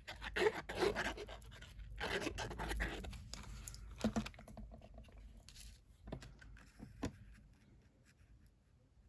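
Paper and cardstock being handled on a craft desk: rustling and scraping for the first few seconds, then a few light taps, dying away near the end.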